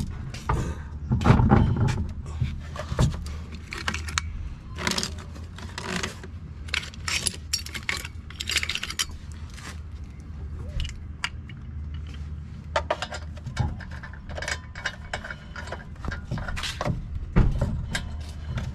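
Steel lug nuts clinking and rattling as they are handled and spun by hand onto the wheel studs while a car wheel is refitted, a run of short, irregular metallic clicks.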